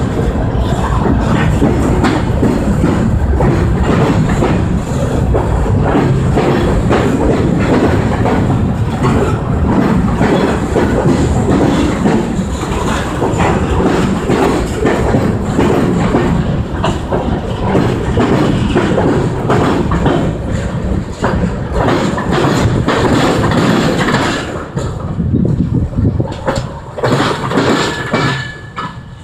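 Union Pacific freight train's covered hoppers and tank cars rolling past close by, a loud rumble with wheels clacking over the rail joints. The sound drops away near the end as the last car passes.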